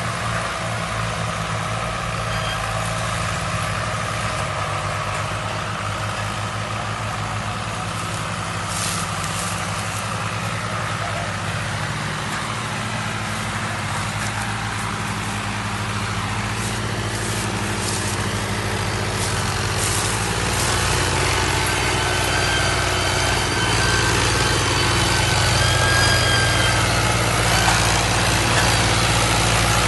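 Large farm-machine engine running steadily, growing a little louder in the second half.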